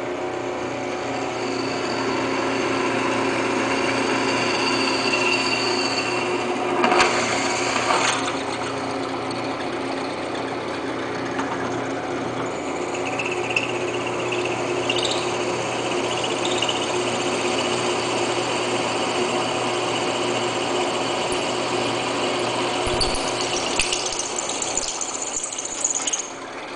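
Drill press running with its bit cutting through a metal pipe: a steady motor hum with a high whine of the bit in the metal, and two brief louder scrapes about seven and eight seconds in.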